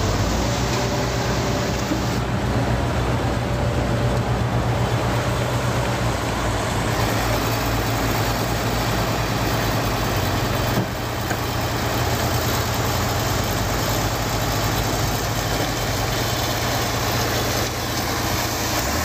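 Transit mixer truck's diesel engine running steadily while it turns the drum to discharge concrete down the chute into a concrete pump's hopper. The note dips and shifts briefly about eleven seconds in.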